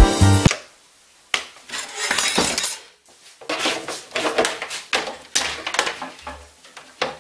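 Thin sheet metal clinking and rattling as it is cut and handled on a workbench: a run of irregular light metallic clicks and clatters. A short tail of music is heard at the very start.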